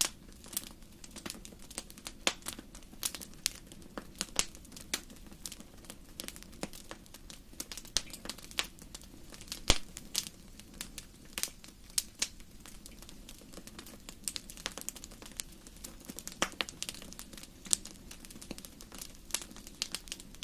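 Campfire crackling: irregular sharp pops and snaps, several a second, over a low steady rush.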